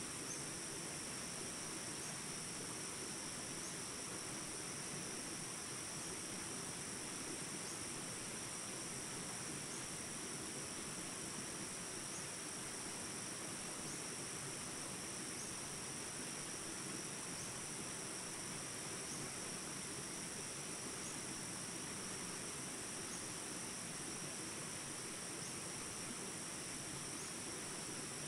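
Steady chorus of field insects, a constant high-pitched buzzing at two pitches, with a faint short chirp repeating about every second and a half, over a soft even hiss.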